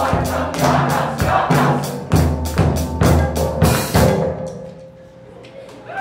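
Choir singing over a drum kit and percussion with a steady beat. About four seconds in, the song ends on a last hit that rings out and fades.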